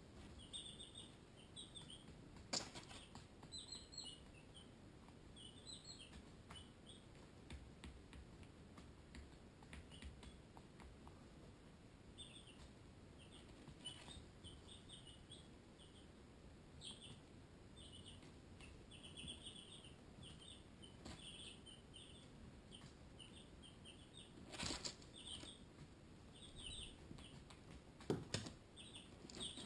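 Barred Rock and Ameraucana baby chicks peeping faintly, short high peeps in quick little runs. A few brief knocks stand out, about two seconds in and twice near the end.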